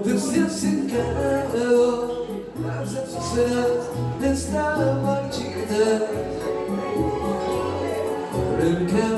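Live music: a man singing over an accompaniment with a bass line that changes note every second or so.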